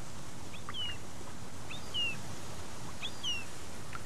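A small bird calling repeatedly, about once a second, each call a quick upward chirp followed by a falling slurred whistle, over a steady low outdoor rumble.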